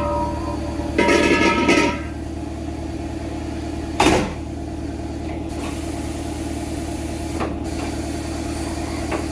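Steady mechanical hum of shop machinery, with a louder clattering burst about a second in and a single sharp knock about four seconds in.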